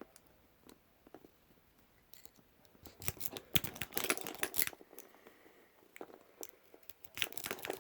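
Lock pick and tension wrench working in a padlock, with the linked padlocks knocking together: faint scratchy clicks at first, then a flurry of louder clicks and rattles from about three to five seconds in, and again near the end.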